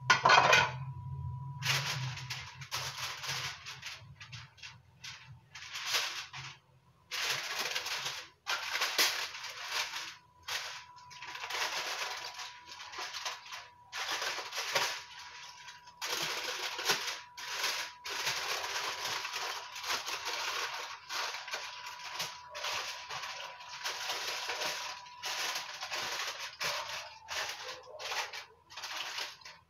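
Aluminium foil crinkling and rustling in repeated irregular bursts as it is folded and pressed closed by hand, after a louder clatter right at the start. A faint steady high tone runs underneath.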